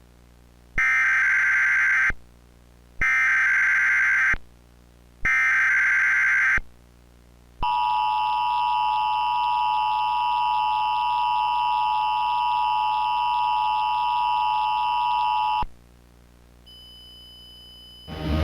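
Emergency Alert System tones: three short bursts of SAME header data, about a second and a half each with short gaps, then the long steady two-tone attention signal for about eight seconds. A faint high tone follows near the end.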